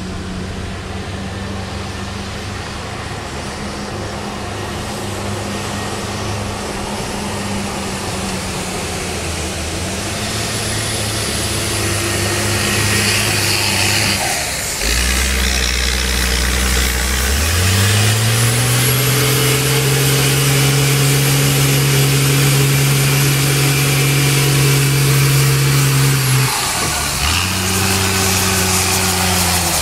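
Caterpillar 3116 turbo diesel of a homemade F-250 monster truck driving under load and getting louder as it nears. About halfway through the engine note drops low, then climbs and holds high for several seconds before dipping briefly near the end, with a faint high whine over it.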